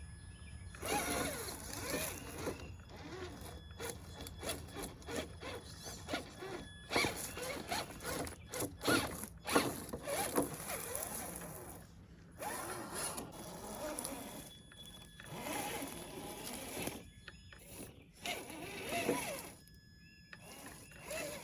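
Traxxas TRX-4 RC crawler's electric motor whining in repeated short bursts of throttle, pitch rising and falling, with clicking and scraping from its drivetrain and tyres on dirt.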